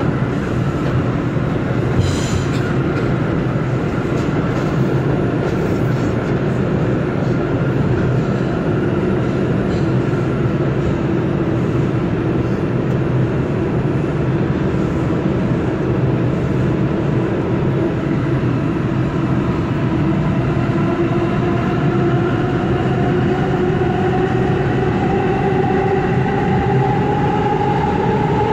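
A New York City subway train running through a tunnel, heard from on board: a steady, loud rumble of the wheels on the rails. A whining tone rises in pitch over the last several seconds.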